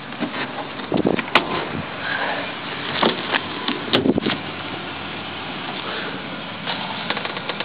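Handling knocks and clicks from a car's trunk and rear door being worked, the sharpest about a second and a half in and again at about four seconds, over a steady rushing background noise.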